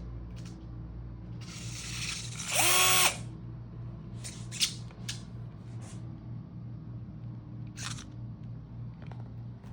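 Power drill triggered once about two and a half seconds in: the motor spins up with a rising whine, runs for about half a second and stops. About a second of rustling noise comes just before it, and a few sharp clicks follow, over a steady low hum.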